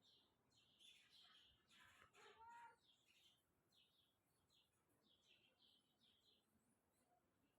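Small birds chirping: short high chirps repeated throughout, with a louder, lower call about two seconds in.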